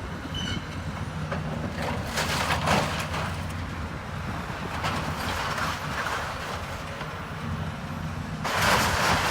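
Diesel engine of a demolition machine running steadily as it tears down a building, with bursts of breaking and falling rubble about two seconds in, around five seconds, and a louder one near the end.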